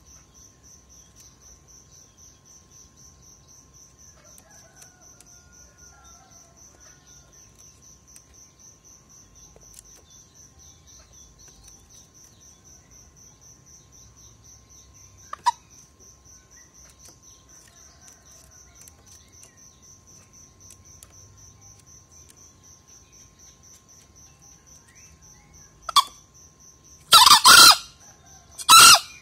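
Green junglefowl rooster crowing near the end: a short note, then two loud crows in quick succession. A steady high cricket trill runs underneath.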